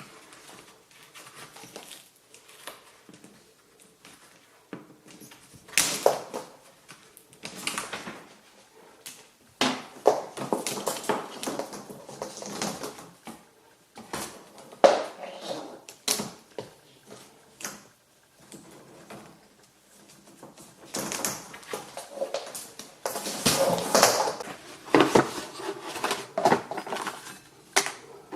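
Irregular knocks, clicks and rustling of things being handled and moved about, in a small room.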